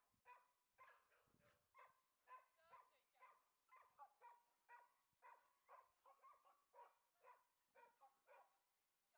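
A dog barking over and over at a steady pace, about two short, fairly high barks a second.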